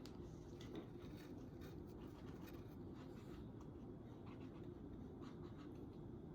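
Faint, light scratchy strokes of a paintbrush being worked over a surface, against a steady low room hum.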